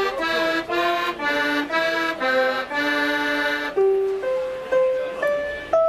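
105-key Decap fairground robot organ playing a tune: reedy, accordion-like melody notes over held chords, the texture thinning to single sustained notes about four seconds in.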